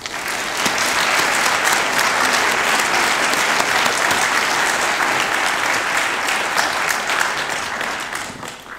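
An audience applauding, a dense steady clapping that swells quickly at the start and dies away near the end.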